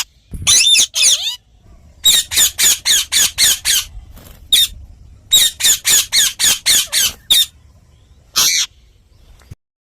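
Indian ringneck parakeet giving harsh, high-pitched squawks in quick runs of about six calls a second, several bursts with short pauses between, cut off sharply near the end.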